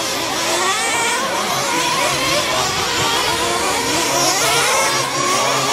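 Several radio-controlled racing trucks running at once: overlapping high motor whines that keep rising and falling in pitch with the throttle.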